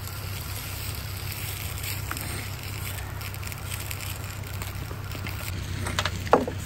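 Steady low rushing background noise with a hum. Near the end come a couple of sharp clinks, like chopsticks striking a metal pan.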